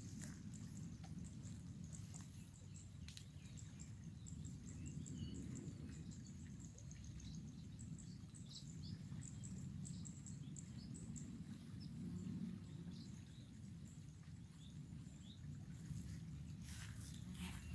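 Outdoor riverside ambience: small birds chirping in short, high calls over a low steady rumble, with a few rustles near the end.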